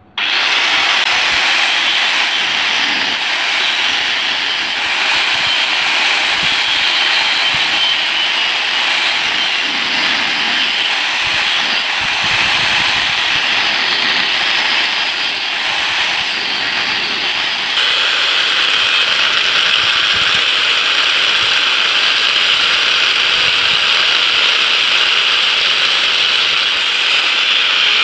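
Angle grinder with a thin abrasive cut-off disc running and cutting into an aluminium block held in a vise: a loud, steady grinding whine. Its tone changes abruptly about two-thirds of the way in.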